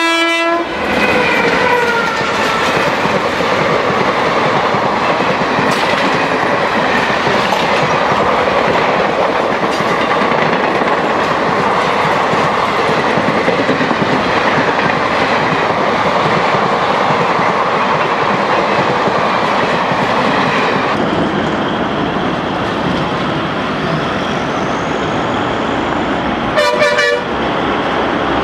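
An express train passing at speed on Indian Railways track: the tail of a locomotive horn blast fading in the first couple of seconds, then a steady clatter and rumble of wheels on the rails for about twenty seconds, and a second short horn blast near the end.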